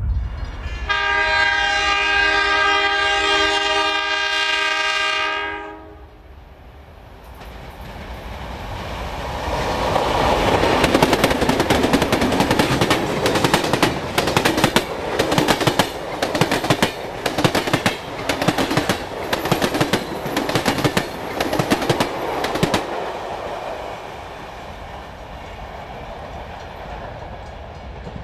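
Diesel locomotive air horn sounding a steady multi-note chord for about five seconds. Then a train hauled by NSW 44 and 45 class ALCO diesel locomotives passes close by: engine and running noise build up, and the wheels clatter over rail joints in a rapid run of sharp clicks. The noise fades as the train moves away.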